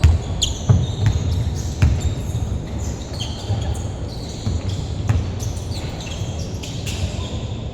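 Basketball thudding on the court floor as it is dribbled in live play, with short high-pitched squeaks of sneakers on the court scattered throughout.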